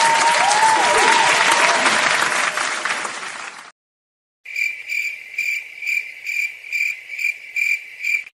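Crowd applause with a few rising-and-falling whistles, fading out about halfway through. After a brief silence, the 'crickets' sound effect follows: a cricket chirping in short high pulses, about two and a half a second, the stock cue for an awkward silence.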